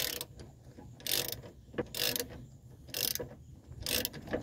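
Socket ratchet being swung back and forth, its pawl clicking in a short rush on each stroke, about once a second, as it backs out a 17 mm brake caliper bracket bolt.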